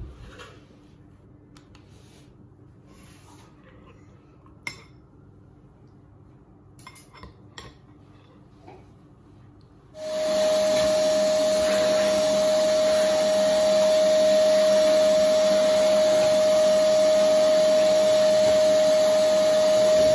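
Canister vacuum cleaner running: a loud, steady rush of air with a high motor whine, starting suddenly about halfway through. Before it, only faint clicks and light clinks of a spoon and bowl and laptop use.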